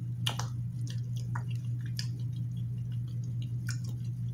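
Close-miked chewing of a mouthful of rice: scattered wet mouth clicks and smacks. A steady low hum runs underneath.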